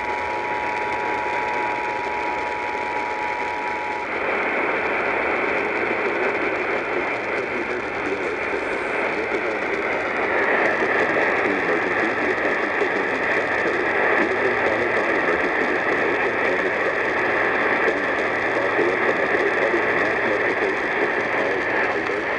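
Emergency Alert System two-tone attention signal from a radio receiver, ending about four seconds in, followed by a steady hiss of radio static that brightens about ten seconds in.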